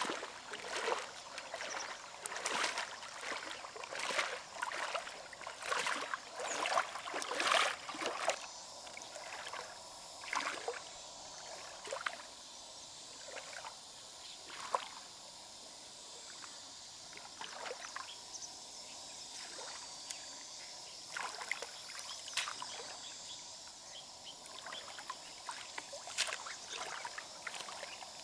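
Water splashing and sloshing, with many quick clicks and knocks for the first eight seconds, then only scattered ones over a steady high hiss.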